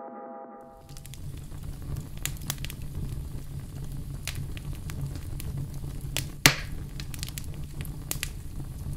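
Crackling fire sound effect: a steady low rumble with scattered sharp crackles and pops, one pop much louder about six and a half seconds in. The ringing tone of a chime-like note dies away in the first second before it.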